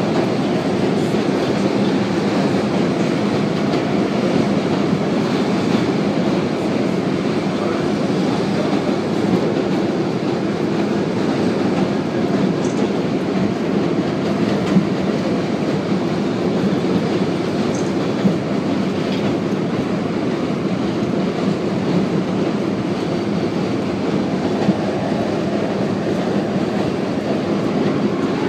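R32 subway car running steadily on elevated track, heard from inside the car: a constant rumble of wheels on the rails with a few faint ticks.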